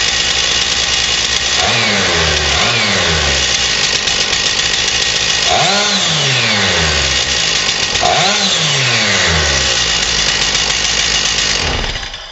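Stihl MS461 two-stroke chainsaw engine running on a swapped-in unlimited MS360 ignition coil, idling and blipped four times, each rev rising quickly and falling back to idle. The engine is shut off near the end.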